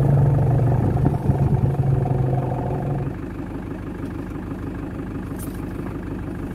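Safari jeep's engine running, with a steady, even-pitched drone for about the first three seconds, after which it settles to a lower idle.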